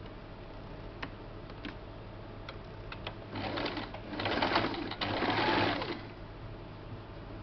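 Electric domestic sewing machine stitching a straight seam in cloth. A few light clicks come first, then the machine runs in a short spurt and a longer, louder run, stopping shortly before the end.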